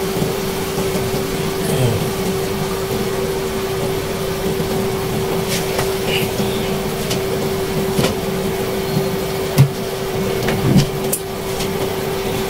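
Pork ribs simmering in sauce in a wok: soft bubbling and hiss over a steady hum from the cooktop, with a few faint clicks.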